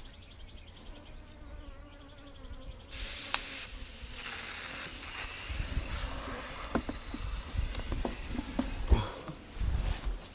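Bees buzzing, then about three seconds in an aerosol bug-fogger can starts spraying with a steady hiss, set off after a fumbled first try; knocks and handling bumps sound over the spray.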